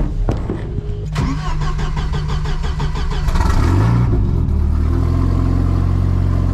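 A car door shuts with a thud about a second in, then the big-turbo Volvo wagon's engine is cranked by the starter, catches with a rising rev a little after three seconds in, and settles into a steady idle. It is a cold start on ethanol fuel, which starts up pretty good.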